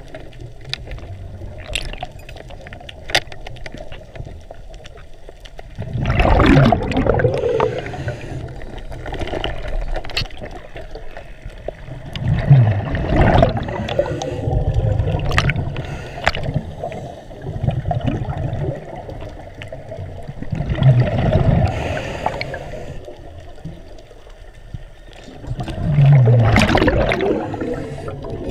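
Underwater water noise around a swimming diver, heard through the camera: a muffled background wash with a louder rush about every six seconds, and scattered sharp clicks.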